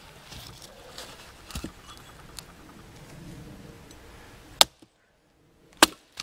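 Hatchet chopping into a stick laid on a log to split it: two sharp chops a little over a second apart near the end, with a lighter knock earlier on.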